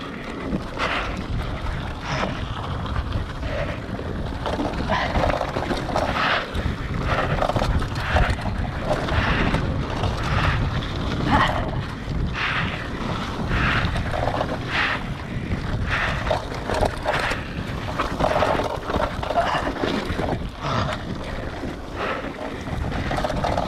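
Wind buffeting the microphone over the rumble of a hardtail mountain bike's tyres on a dirt trail, broken by frequent irregular rattles and clatters as the bike goes over bumps.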